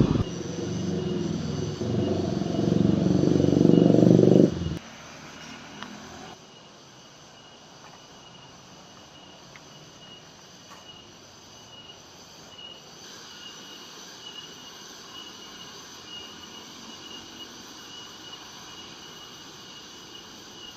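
A loud low rumble for about the first five seconds, which cuts off abruptly, then a steady chorus of insects chirring in the forest, with high, even tones.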